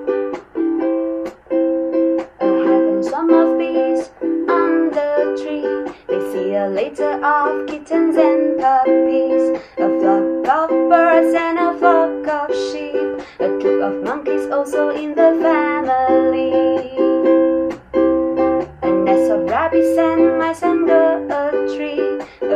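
Ukulele strummed in a steady rhythm, about two strokes a second, with a gliding melody line over the chords.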